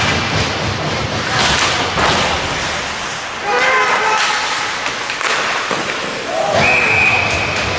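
Ice hockey play in an arena: sharp knocks and thuds of pucks, sticks and bodies against the boards, with players' shouts. Near the end a steady high-pitched referee's whistle blows, stopping play.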